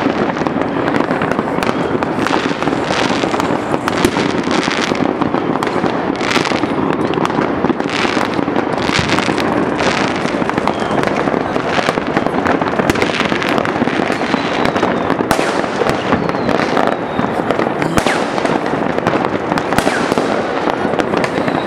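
New Year fireworks and firecrackers going off all over a city at once: a dense, unbroken barrage of countless overlapping bangs and crackles, with no pauses.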